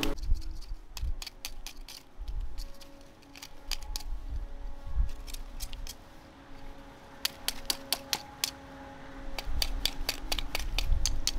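Small wire rake scratching through a heap of burnt rubbish and ash, with irregular clicks and clinks in clusters as bits of debris knock together and are picked out by hand.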